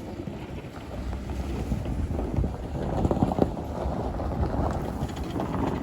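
Tow vehicle pulling the trailer away with the strapped-down mini excavator, a low engine rumble growing louder over the first few seconds, with wind buffeting the microphone.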